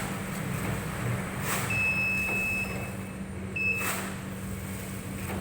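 Single-die plastic bag cutting and sealing machine running, with a steady hum and a sharp stroke about every two and a half seconds as it cycles. A high steady beep lasts about a second near the middle, and a shorter one follows.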